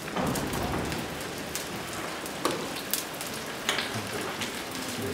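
Molten bell metal running into a bell mould during the pour: a steady hiss with many sharp crackles and pops.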